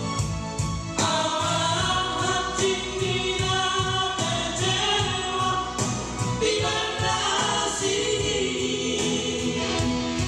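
Several voices singing a Batak song together, in harmony over instrumental accompaniment.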